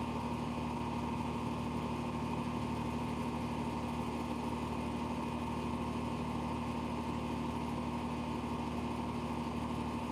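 Steady, unchanging hum with no voice, which starts abruptly out of dead silence: the livestream's audio has dropped the speaker while his phone's Wi-Fi signal is weak.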